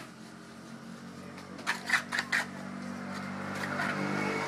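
A few sharp clicks and knocks about two seconds in, from incense sticks being handled on a wooden board. Then a low, steady hum grows louder.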